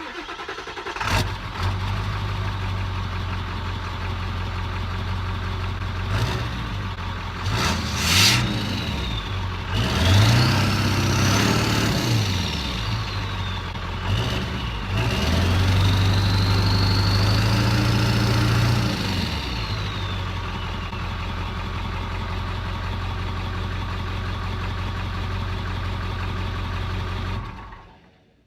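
Ford 7.3 Powerstroke turbo-diesel V8 breathing through a 4-inch Diamond Eye turbo-back exhaust with muffler: it starts, idles, takes a few quick throttle blips and a longer held rev, with a turbo whistle rising and falling alongside, settles back to idle, then is shut off near the end.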